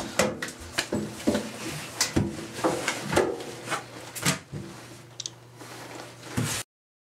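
Repeated thuds and knocks of a body banging against a bathtub and a bathroom floor while someone thrashes about. The sound cuts off suddenly near the end.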